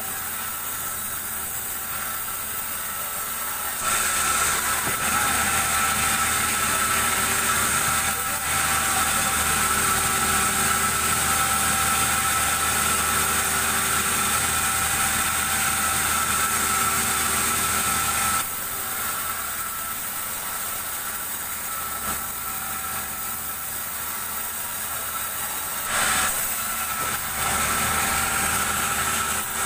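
Band sawmill running steadily. From about four seconds in to about eighteen seconds, and again near the end, the noise grows louder as the blade cuts through a large mango log.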